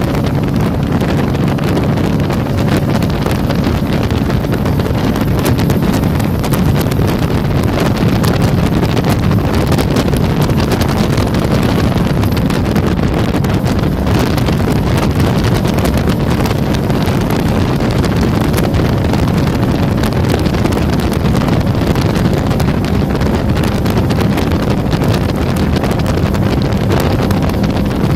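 Jet boat engine running steadily at speed, with wind buffeting the microphone.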